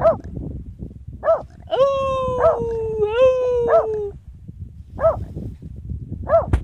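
Volpino Italiano dogs howling: one long howl that slides slowly down in pitch and jumps up once partway, with short sharp yips in between. A sharp knock near the end.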